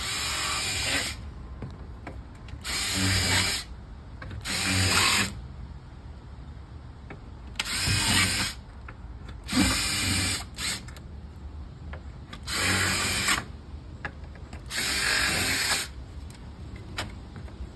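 Cordless drill with a 1/8-inch bit pre-drilling pilot holes into the storm door's hinge-side Z-bar: seven short runs of about a second each, with pauses between as it moves down the hinge.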